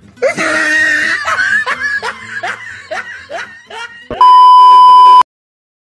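A burst of laughter, a string of quick 'ha' pulses about two or three a second, then about four seconds in a loud steady high beep, the TV colour-bars test tone, which holds for about a second and cuts off suddenly.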